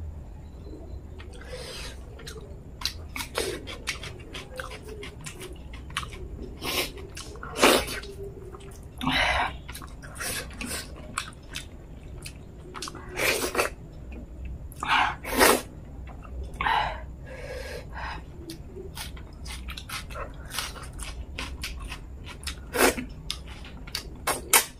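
Close-miked mouth sounds of eating wheat dhido with fish head curry by hand: wet chewing and lip smacks, broken by several louder, longer noisy sounds about half a second long.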